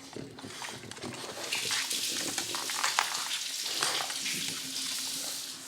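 Two dogs eating a homemade dog cupcake: wet chewing, licking and lip-smacking clicks, growing busier about a second and a half in.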